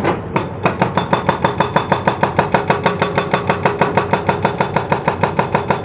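Excavator-mounted hydraulic rock breaker hammering rock in a steady rapid rhythm, about eight blows a second, over the steady running of diesel engines.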